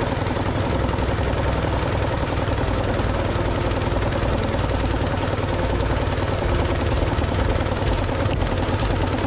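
Harbor Freight 212cc gas engine running steadily and belt-driving a V-twin compressor pump, with the vent valve closed so the tank is charging. The sound is loud and even throughout.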